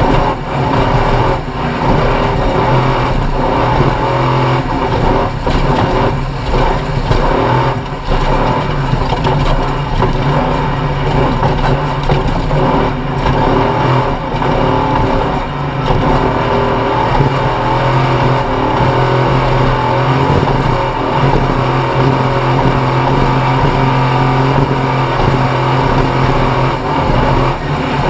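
Off-road race vehicle's engine running hard and fairly steady at speed, with frequent knocks scattered through it.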